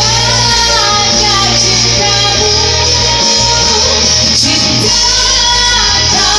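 A pop song with a singing voice in held, gliding notes over a steady bass line.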